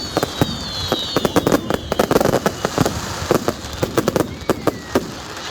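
Fireworks going off in a rapid, irregular string of bangs and crackles, with high whistles sliding down in pitch over the first couple of seconds.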